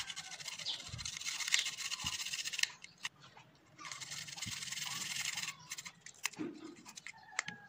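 Garlic cloves being rubbed against the teeth of a stainless-steel box grater: a steady scraping, stopping for about a second near the middle, then going on for another couple of seconds, followed by a few light clicks near the end.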